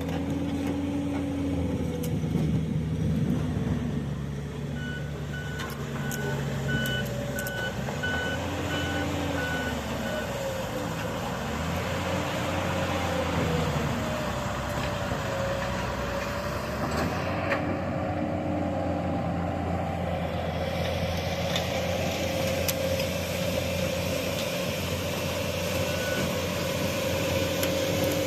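Excavator diesel engine running, its pitch rising and falling several times as it works under load. From about five to ten seconds in, a travel or reversing alarm sounds a series of evenly spaced beeps.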